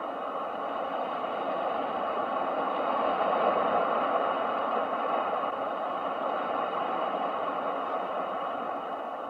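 Ocean waves: a steady, muffled rush of surf that swells to a peak about four seconds in and then eases off.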